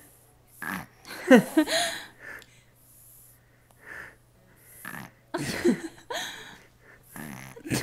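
A two-week-old baby snoring and snorting in her sleep: a string of short, noisy, wheezy breaths at irregular intervals.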